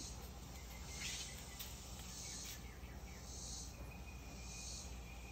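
Insects chirping faintly in short high buzzes every second or so, over quiet outdoor background noise.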